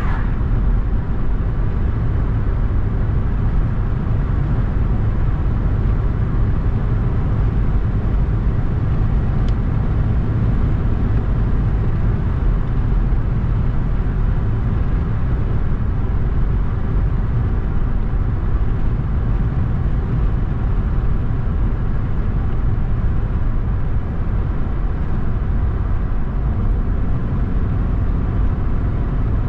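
Steady road noise of a car driving along, a low rumble of engine and tyres that holds even throughout.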